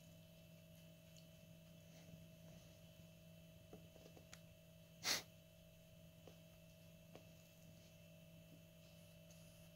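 Near silence: faint room tone with a steady low hum and a few light taps, broken by one short noisy puff of breath about five seconds in.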